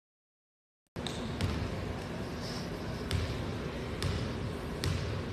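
A basketball bounced on a hardwood gym floor four times at an uneven pace, like a free-throw shooter's dribbles at the line, over steady gym room noise. The sound cuts out completely for about the first second.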